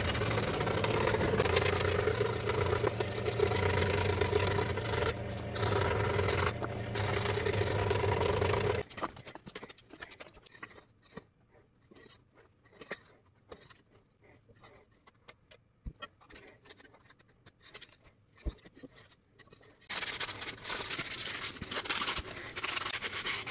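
Benchtop scroll saw running and cutting foam board, a steady motor-and-blade sound that stops abruptly about nine seconds in. Light clicks and rustles of cut foam pieces being handled follow. Near the end a cut foam piece is sanded by hand, a rough rubbing sound.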